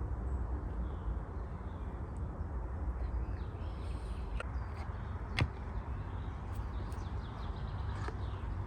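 Woodland ambience: a steady low rumble, faint bird chirps, and a few sharp clicks or snaps from about four seconds in, the loudest about five and a half seconds in.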